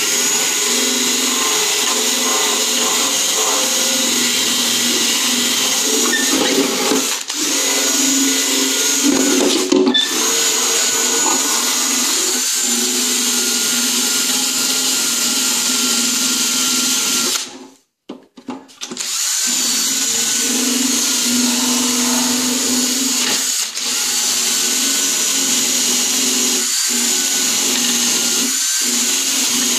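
Electric power tool, used as a buffer, running steadily while polishing a plastic truck tail light lens. It cuts out for about a second just past halfway, then starts up again.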